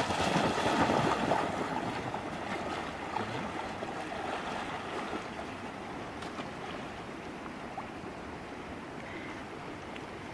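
A dog splashing as it runs into shallow river water, loudest in the first second or two, then the steady rush of the flowing river as it swims.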